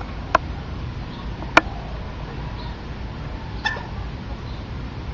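A dog chewing on a raw turkey carcass, with three sharp cracks of bone crunching; the loudest comes about a second and a half in. A steady low rumble runs underneath.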